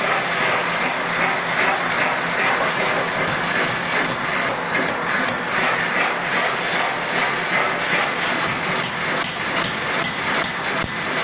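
Forging-shop machinery, a ring rolling machine and an air hammer, running with a steady mechanical din full of fast rattling, ratchet-like clicks. The clicks grow sharper and more distinct over the last few seconds.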